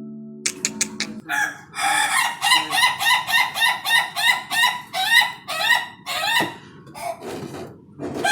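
Ayam ketawa rooster crowing in its breed's laughing style: a long run of short repeated notes, about two to three a second, stopping about six seconds in, with a few more notes near the end. The intro music cuts out in the first second.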